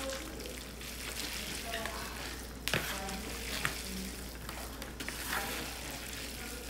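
Hands in nitrile gloves tossing and mixing moist shredded pulled pork on a metal sheet pan: a steady crackly rustle with a few sharper clicks.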